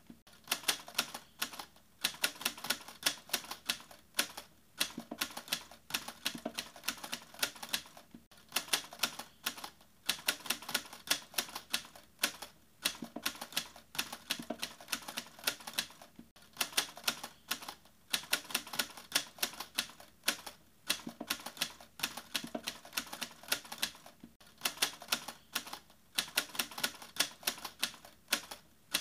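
Rapid clicking of typewriter keys, many strokes a second, pausing briefly about every four seconds as if in a repeating loop.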